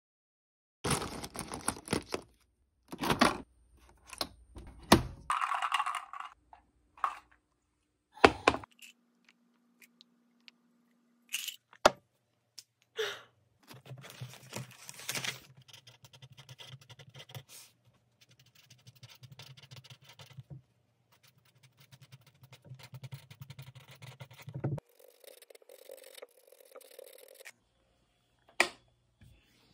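Desk handling sounds: paper rustling and tearing, sheets being pressed and turned, and a pen scraping on paper, broken by several sharp knocks. A steady low hum runs under the rustling for about ten seconds in the middle.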